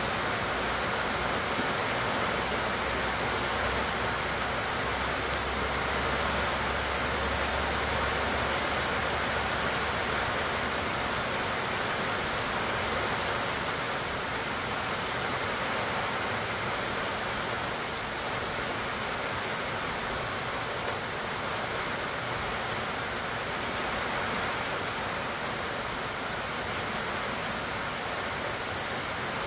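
Steady rain falling on the leaves of pecan trees and on grass, an even, constant hiss of drops. A low rumble lies underneath for roughly the first ten seconds.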